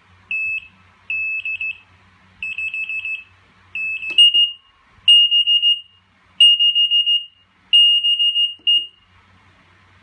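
YOOYIST CAL-8B eight-channel kitchen timer's alarm beeping: repeated bursts of rapid high-pitched beeps, about one burst every second and a half, signalling that a channel has counted down to zero. The beeping stops shortly before the end, with a click about four seconds in.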